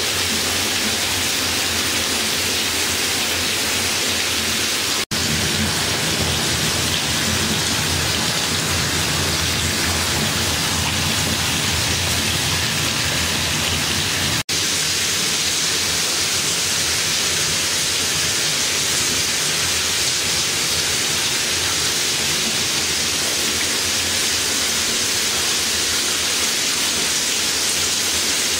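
Steady, loud rushing hiss that cuts out for an instant twice, about five and fourteen seconds in.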